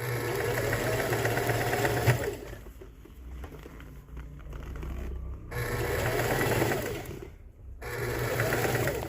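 Sewing machine stitching a seam around the torn lining of a jacket, running in three stretches with short stops, loudest in the first couple of seconds.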